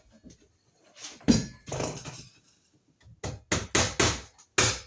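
Hammer striking a cable staple into a wall stud to fasten electrical wires. Two heavier blows, then a quick run of about five sharper strikes.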